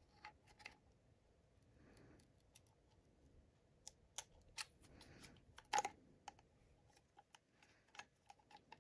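Faint, scattered small clicks and taps of a HomePod mini's top circuit board and plastic housing being handled and lined up during reassembly, with one louder click a little before six seconds in.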